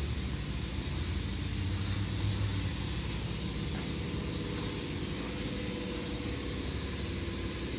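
A steady low mechanical drone of running machinery, with one faint click about four seconds in.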